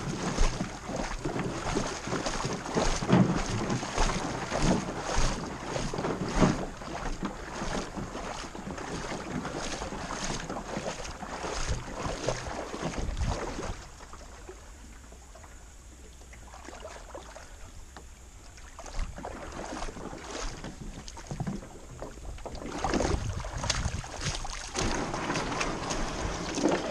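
Jon boat running down a shallow gravel shoal: rushing riffle water with frequent knocks and scrapes against the boat. It quietens for several seconds about halfway through, then the knocking and water pick up again near the end.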